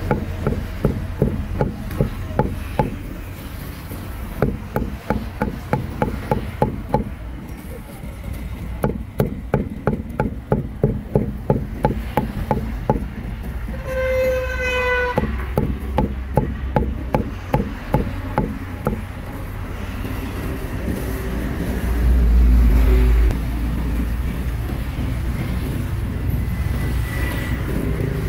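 Cleaver chopping grilled meat on a cutting board, fast and even, about four chops a second, for the first half. About halfway a vehicle horn honks once, briefly, and later a loud low rumble from a passing vehicle.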